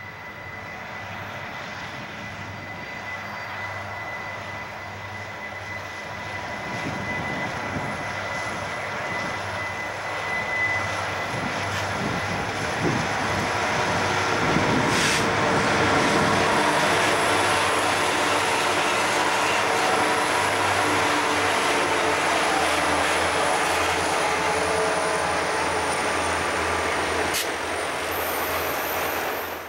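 Santa Fe diesel freight locomotives approaching and passing, their engines growing steadily louder up to about halfway through. Then comes the steady rumble of intermodal trailer cars rolling by on the rails, which cuts off suddenly at the very end.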